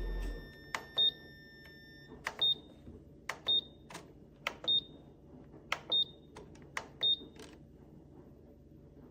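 Electronic control-panel beeps from an air fryer toaster oven: a low running hum cuts off just after the start, then six short high beeps follow over about six seconds, each just after a click.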